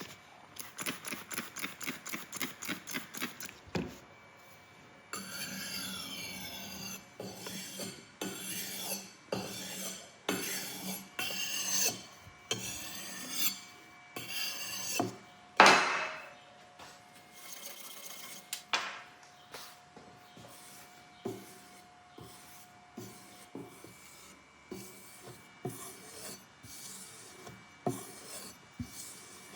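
Hand filing or rasping on a knife handle while it is being shaped. Quick, even strokes, about five a second, open the passage; slower sweeping strokes follow, with one loud scrape about halfway through, then lighter, irregular strokes.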